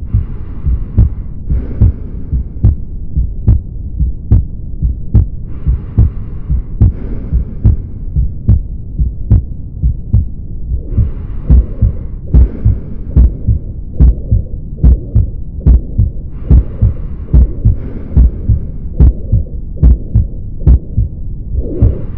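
Heart sounds heard through a stethoscope: low thumping beats in a steady rhythm, with a hissing noise that comes back about every five and a half seconds.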